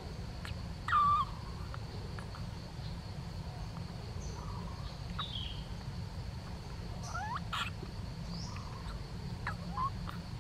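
Infant yellow-cheeked gibbon giving a handful of short, high squeaks while suckling milk from a bottle, the loudest about a second in; a low steady hum runs underneath.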